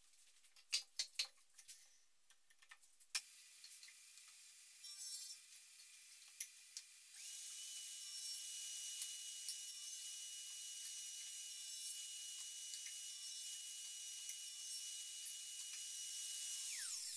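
Homemade table saw built around the motor unit from a Scheppach chop saw: a few knocks as the wood is handled, then the saw starts suddenly about three seconds in and runs with a steady high whine while a plywood board is fed through the blade. Near the end the whine falls in pitch.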